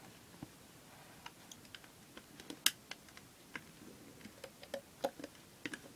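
Faint, irregular clicks and taps of a hook and rubber bands against the pegs of a plastic band loom as bands are looped up, one louder click a little before halfway.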